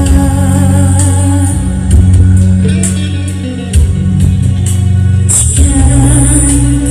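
A young boy singing live into a handheld microphone over loud backing music, his voice amplified through the stage sound system.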